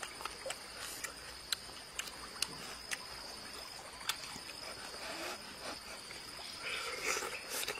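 Insects chirring steadily, with scattered sharp clicks and, near the end, eating noises as cooked fish is pulled apart by hand and bitten.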